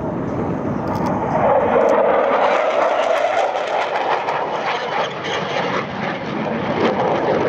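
CF-18 Hornet fighter jet's twin General Electric F404 turbofans, with loud, continuous jet noise as it flies past and banks into a climb. A tone in the noise rises about a second and a half in, then slowly falls.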